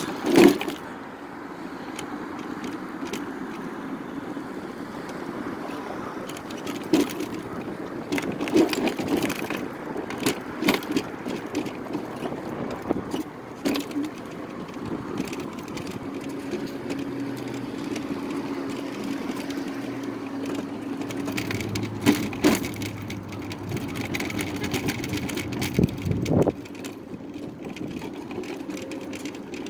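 Electric mobility scooter riding over road and brick-paved sidewalk: a steady motor hum under tyre noise, with scattered knocks and rattles from bumps in the pavement.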